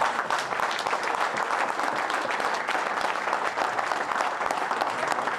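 A crowd applauding: dense, steady clapping from many hands.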